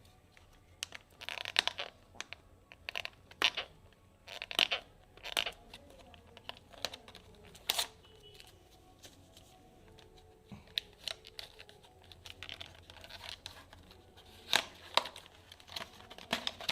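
Retail packaging of a WD Blue SSD being torn open and handled: irregular scratchy rustles and sharp snaps, busiest in the first eight seconds and again near the end.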